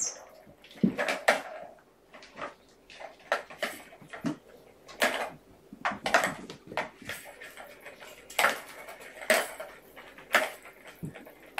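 Kittens scampering and playing on a carpeted floor: a dozen or so irregular knocks, thuds and clatters as they run, pounce and bat plastic toys about.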